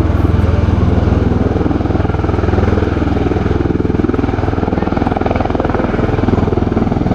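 MV-22 Osprey tiltrotor in slow flight in helicopter mode, its two large proprotors and turboshaft engines giving a loud, steady low thrum with a rapid, even blade beat.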